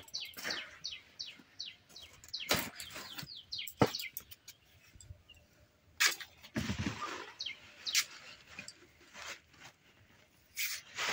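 A bird chirps in a quick run of short falling notes for the first couple of seconds, then only now and then. Over it come a few sharp clicks and some rustling as a padma-maan leaf stalk is cut and trimmed on a boti blade.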